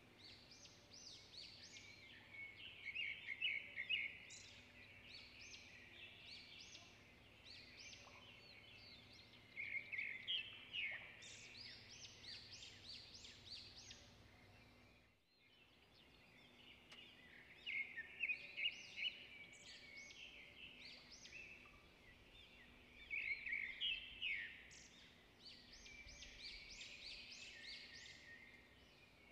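Songbirds singing, a busy run of quick chirps and trills, with a short break about halfway through.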